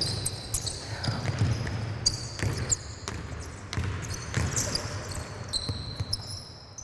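Basketball bouncing on a hardwood court and players' sneakers squeaking as they cut and guard in a basketball drill, with thuds and short high squeaks echoing in a large sports hall. The activity tails off near the end.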